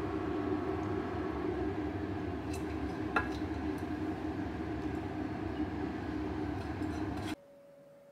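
A steady mechanical hum with a light clink of crockery about three seconds in, as sauce is tipped from a pan onto a plate of spaghetti. The hum cuts off suddenly near the end, leaving quiet room tone with a faint steady tone.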